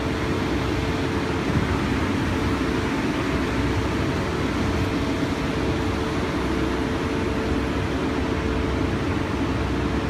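Trailer-mounted REED concrete pump running steadily while pumping cement mortar grout: a continuous engine drone with a faint steady whine above it.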